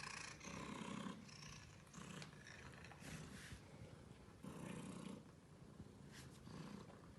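Domestic cat purring, the purr swelling and easing in phases every second or so as it breathes in and out.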